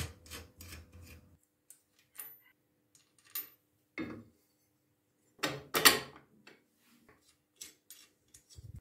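Steel parts clinking and knocking as a welded steel-angle bracket and its bolts are handled and set in place on a lathe's rotary-table slide: scattered short clicks, with the loudest knocks about five and a half to six seconds in.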